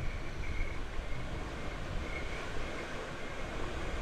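Steady rushing, rumbling noise from a river rapids raft ride in motion.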